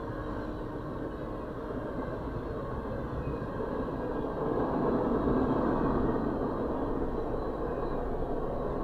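Freight train of tank cars and boxcars rolling past close by, a steady rumble of wheels on rail heard from inside a vehicle, swelling a little about halfway through.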